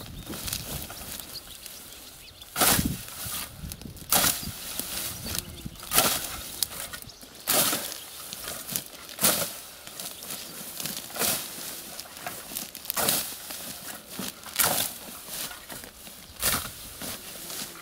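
Hand scythe swung through tall stinging nettles, a sharp swish of the blade cutting the stems about every two seconds, nine strokes in all.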